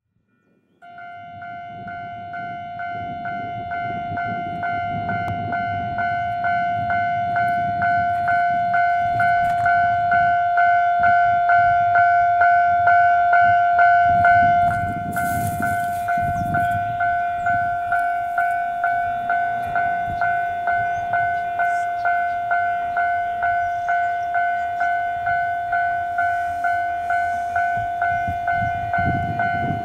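Japanese railway level-crossing warning bell ringing, a bright electronic ding repeated about one and a half times a second, each strike fading before the next. It is the signal that a train is approaching the crossing.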